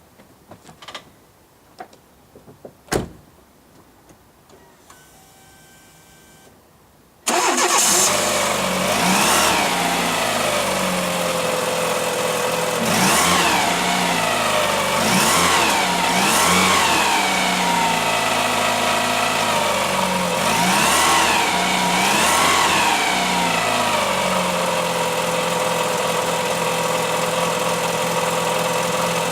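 A few faint clicks, then a Fiat Palio's engine starts about seven seconds in. It is revved in several short blips and settles to a steady idle.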